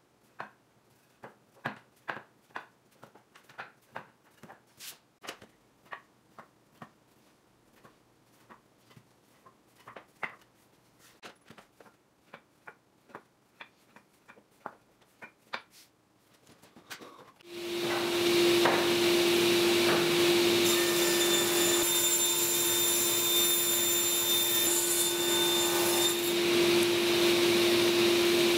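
Hardwood end-grain cutting board blanks set down and shifted together on a bench: a string of light, irregular wooden clacks. About two-thirds of the way in, a table saw starts up and runs steadily, a loud rushing noise with a steady hum in it.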